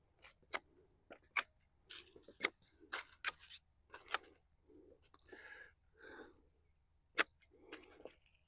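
Fig branch and leaves being cut and handled: a string of sharp snaps and clicks about once a second, with a longer leafy rustle in the middle.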